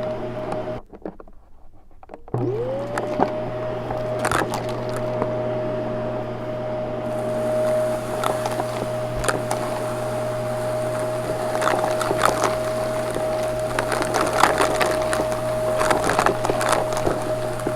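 Vacuum cleaner motor running with a steady whine. It cuts out about a second in, starts again about two seconds in with its whine rising quickly to full speed, then runs steadily with many short clicks and crackles of debris being sucked up.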